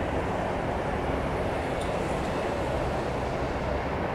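Steady roar of a Boeing 787-10 Dreamliner's twin GEnx-1B turbofans at climb power as the airliner climbs away after takeoff, heard from far off on the ground.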